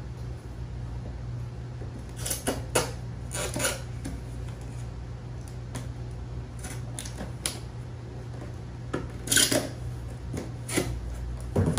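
Handling noises as a rail is pressed onto the top edge of a plastic storage box: scattered short scrapes, rustles and clicks of plastic on plastic, in several brief clusters.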